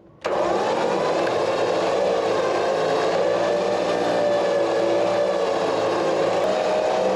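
Warn electric winch motor and gearbox running steadily under load, pulling a log onto a trailer, with a whining tone; it starts abruptly about a quarter second in.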